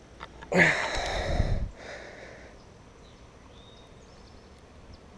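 A short burst of water splashing and sloshing as a striped bass, held by the jaw in shallow creek water, is moved and kicks while being revived; it lasts about a second, then falls to a faint steady background hiss.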